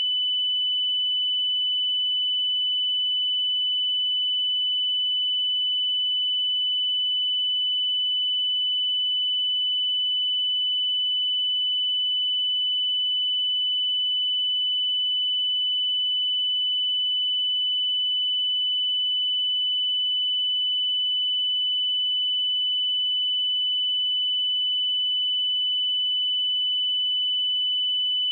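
A steady pure sine-wave test tone at 2994 Hz, a single high-pitched note held at constant level without change, used to check speakers or headphones.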